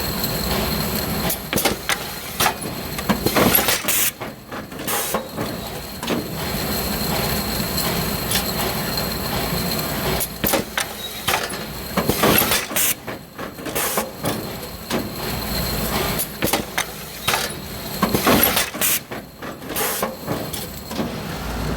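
Three-knife trimmer running with a steady machine hum and a thin high whine. It clunks and hisses every few seconds as it cycles its cuts.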